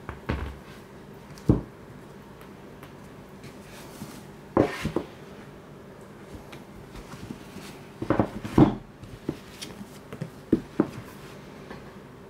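Hardcover manga books being handled and set down on a hard surface: a series of dull knocks and taps, some single and some in quick clusters, the loudest about a second and a half in and a cluster around eight seconds in.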